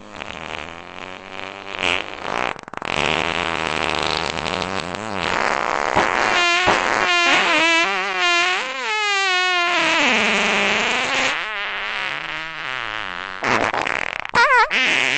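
Honda car engine revved hard, its exhaust note climbing and falling again and again, with a fast wavering pitch in the middle.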